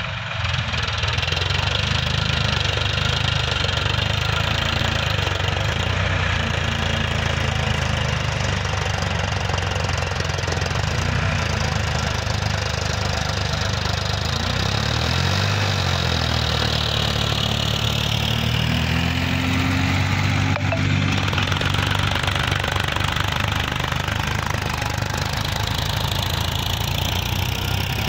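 Several small diesel tractor engines running together under load while scraping sand with rear blades. Their overlapping engine notes hold steady, then rise and fall in pitch about halfway through as the engines change speed.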